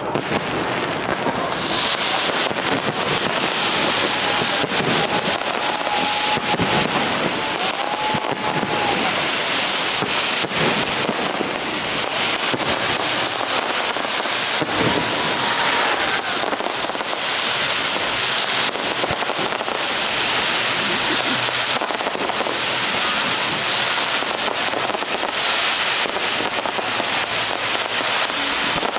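Fireworks display: a continuous dense barrage of crackling and popping bursts, with a few short whistles.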